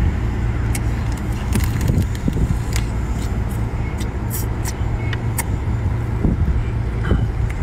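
Close-up eating sounds of a person picking at and sucking meat from a cooked crab: scattered sharp clicks and smacks of shell and lips at irregular moments, over a steady low rumble.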